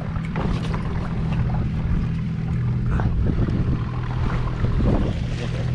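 Wind buffeting the camera microphone, with water sloshing around a kayak and a few small knocks, over a low steady hum.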